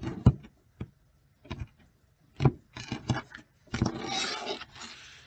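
A deck of oracle cards being handled and shuffled: several light taps and knocks, then a sliding, rubbing rasp of cards about four seconds in that fades away.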